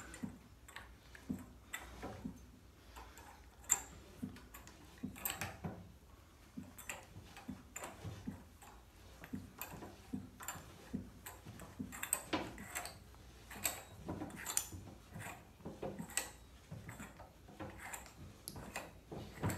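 Scattered light metallic clicks and clinks, irregular and faint, from handling the crankshaft with its connecting rods attached as it is taken out of its stand.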